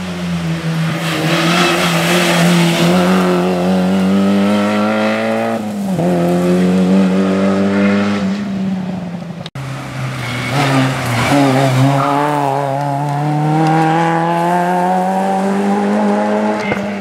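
Rally car engines driven hard on a tarmac stage, revs climbing and dropping through gear changes and braking for bends. The sound cuts off suddenly about halfway and picks up with another stretch of the same flat-out driving.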